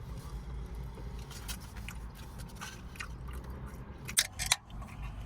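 Eating sounds: chewing takeout food, with scattered small clicks and taps and two sharper clicks about four seconds in, over a low steady hum.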